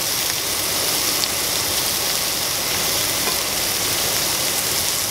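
Shrimp searing in hot oil in a nonstick skillet, sizzling steadily.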